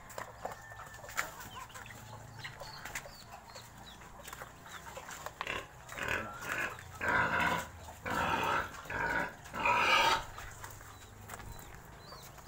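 Pigs in a pen giving a run of about seven loud, harsh calls between about five and ten seconds in, with faint bird chirps behind.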